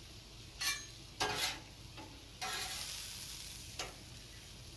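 Beef and holy basil sizzling on a hot Cuisinart 360 flat-top griddle as they are stirred. A couple of short scrapes come first, then a burst of sizzling about two and a half seconds in that slowly dies down.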